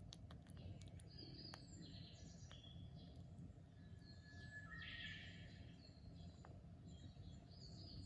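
Faint, scattered chirps and short falling peeps from young lovebird chicks, with a few light ticks.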